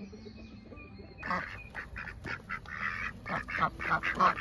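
Several domestic ducks quacking: a fast run of short, loud quacks that starts suddenly about a second in and keeps going.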